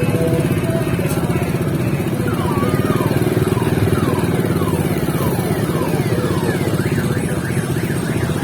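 Motorcycle engines running close by in busy traffic, a steady rapid low pulsing. From about two seconds in, a fast series of short falling chirps repeats over the engines, getting quicker near the end.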